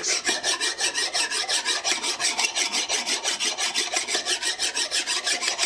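Flat hand file scraping back and forth across the metal face of a Skinner Junior three-jaw lathe chuck body, in quick, even strokes about six a second. It is taking down dings and raised high spots to flatten the face.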